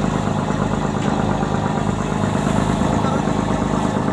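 A small boat's engine running steadily, with a fast even beat, over the rush of choppy water.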